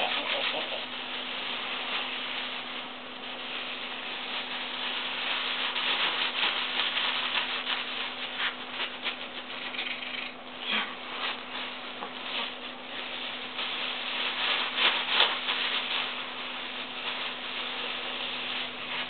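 Thin plastic bag crinkling and rustling as hands rub it over a cat's head, a continuous run of small crackles with louder crinkles now and then, over a faint steady hum.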